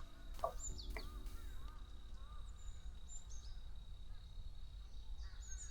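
Faint birds chirping: scattered short, high chirps and whistled glides over a steady low background rumble.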